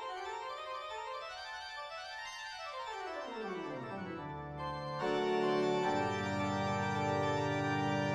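Background music: a run of notes stepping down in pitch, then held chords, louder from about five seconds in.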